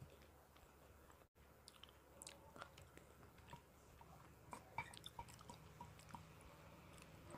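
Quiet close-miked chewing of soft rice cake and vegetable stew, with small wet mouth clicks and light knocks of a wooden spoon against the plate, the clicks busiest a little past the middle.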